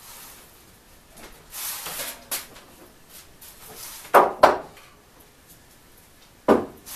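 A heavy block of log set down on a wooden workbench: a soft shuffle of handling, then two sharp wooden knocks about four seconds in, and another knock near the end.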